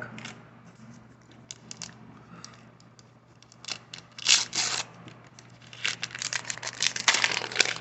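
Wax-paper wrapper of a 1984 Fleer baseball card pack being torn open and crinkled. Sparse crackles at first, a louder rip about four seconds in, and busier crinkling near the end.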